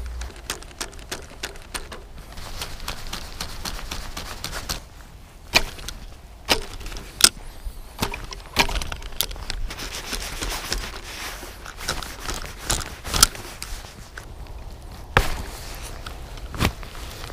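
Irregular sharp clicks and knocks, with a few louder snaps among them, from a spinning rod, reel and line being handled and pulled against a lure snagged on the bottom.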